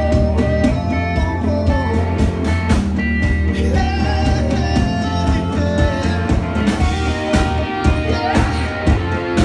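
Live blues-rock band playing loud: two electric guitars with bending lead lines over a drum kit's steady beat, with a singer's voice.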